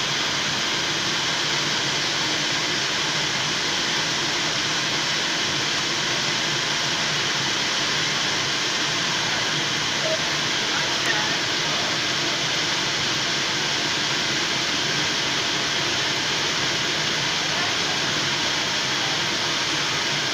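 Electric air blower keeping an inflatable mechanical-bull ring inflated, running with a steady, even drone.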